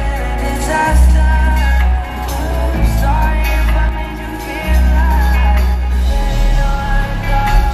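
Live pop song played loud through an arena sound system, recorded from the crowd: a sung vocal line over a deep, sustained synth bass that briefly drops out about two and four seconds in.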